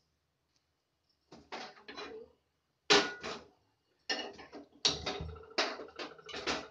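A run of sharp clicks and metallic clatters as a gas stove burner is lit with a handheld spark lighter, with a faint ringing tone under the later clicks.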